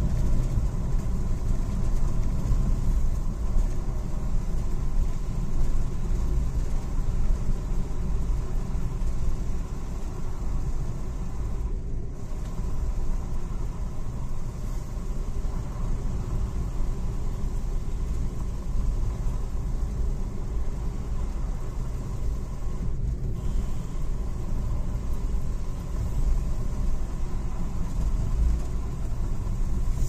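Steady low rumble of a moving road vehicle: engine and tyre noise while driving along.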